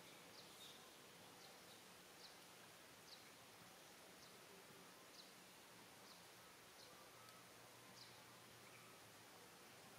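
Near silence: faint outdoor ambience, a steady hiss with short, high chirps about once a second.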